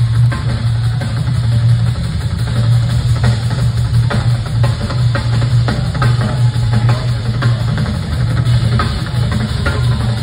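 Two drum kits playing together live through a concert PA, a busy run of hits, with a steady low note held underneath.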